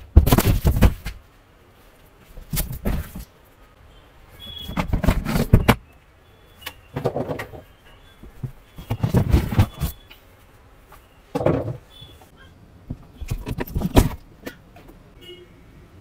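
Cardboard box and packing being handled while a large boxed ride-on ATV is unpacked: about eight irregular noisy bursts of rustling and knocking, some lasting over a second, with short quiet gaps between them.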